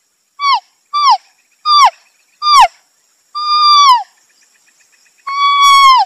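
An animal calling: four short high clear calls, each dropping in pitch at the end, then two longer drawn-out calls of the same shape, with a faint fast pulsing between the last calls.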